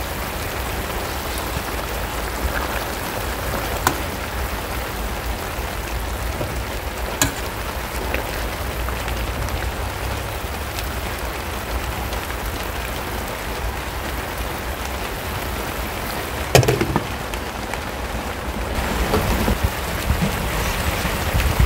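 Stuffed courgettes in tomato sauce simmering in a frying pan over low heat: a steady sizzling hiss with a few faint pops, and a louder knock about three-quarters of the way through.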